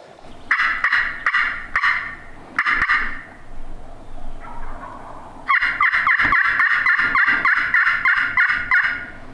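Friction pot turkey call worked with a wooden striker, imitating a hen turkey's yelps: four separate yelps in the first few seconds, then a longer, faster run of yelps from about halfway, calling to gobblers.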